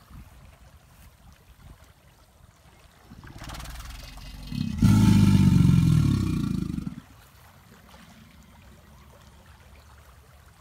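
American alligator bellowing once. A low rumble builds for about a second and a half, then a loud, deep bellow lasts about two seconds and cuts off suddenly.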